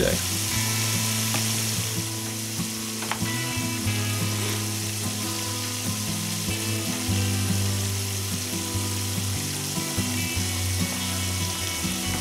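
Breaded catfish fillets deep-frying in a skillet of hot oil, a steady sizzle.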